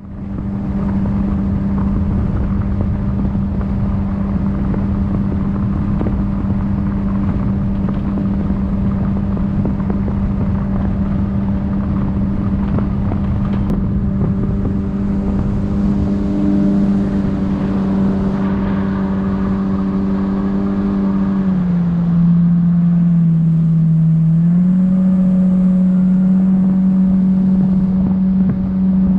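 Jet boat's outboard engine running steadily under way, its pitch dropping for a few seconds as the throttle is eased back about three-quarters of the way through, then rising again.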